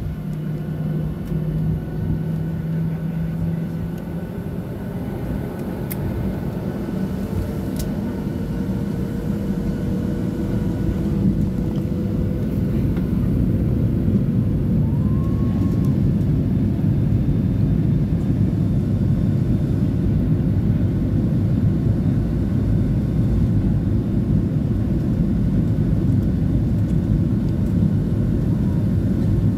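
Boeing 737-800's CFM56 jet engines spooling up to takeoff thrust, heard from the cabin over the wing. A slowly rising whine and a growing rumble build over the first dozen seconds, then settle into a steady loud rumble of the takeoff roll.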